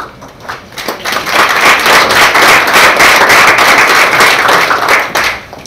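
Audience applauding at the end of a talk. It starts with scattered claps, swells into full applause about a second in, and dies away near the end.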